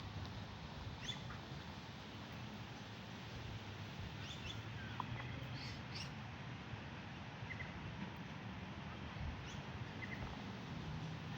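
Scattered short bird chirps, a few brief high notes every second or two, over a steady background hiss and low hum.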